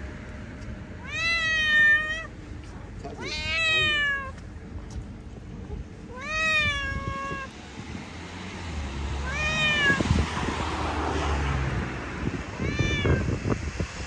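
A street cat meowing five times, each call about a second long and rising then falling in pitch; the last two calls are shorter and fainter.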